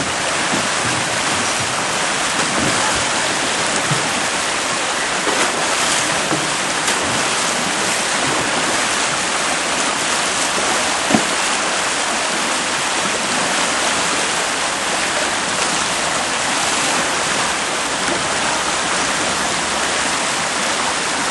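Rushing whitewater of a river rapid: a steady, unbroken hiss of fast-flowing water, with a single short knock about eleven seconds in.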